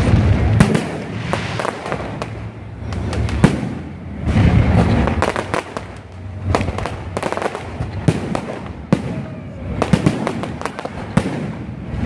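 Aerial fireworks going off in quick succession: many sharp bangs and crackles, with low rumbling swells from bigger shell bursts every few seconds.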